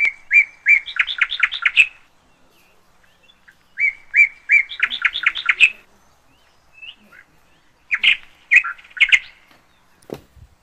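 A songbird singing three phrases, each opening with a few spaced notes and running into a quick trill. A brief knock comes near the end.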